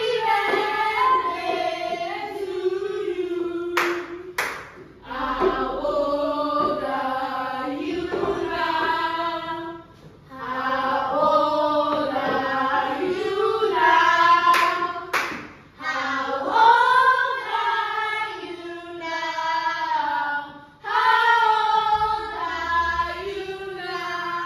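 A group of children singing together in unison, a song in several phrases with short breaks for breath between them, and a few sharp claps between phrases.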